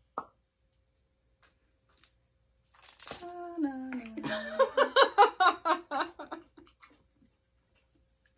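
A woman's wordless vocal sound: a long groan falling in pitch, breaking into a run of quick rhythmic vocal pulses about five a second.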